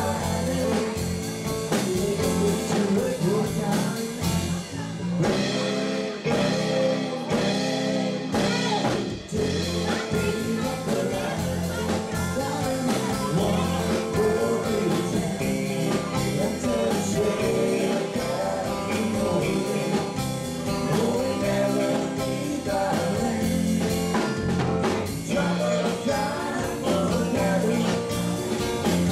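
Live country-rock band playing a song, with electric guitar and singing over the band.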